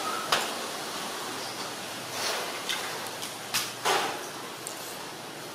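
A few sharp knocks and rattles of a plastic drawer cabinet as a baby monkey climbs its side, over a steady background hiss.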